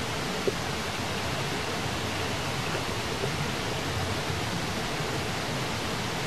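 Steady, even hiss of background noise with no distinct sound events, apart from one faint short tick about half a second in.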